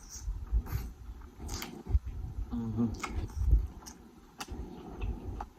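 Close-miked chewing and mouth sounds of a person eating a sub sandwich: scattered soft clicks and low thumps, with a brief hummed "mm" about two and a half seconds in.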